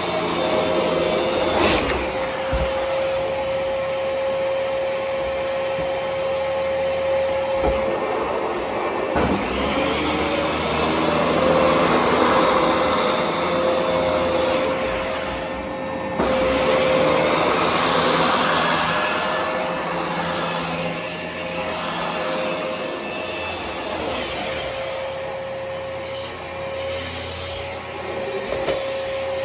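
Dyson DC17 Absolute upright vacuum cleaner running: a steady motor whine over a rushing airflow that swells and fades. There is a sharp click about two seconds in.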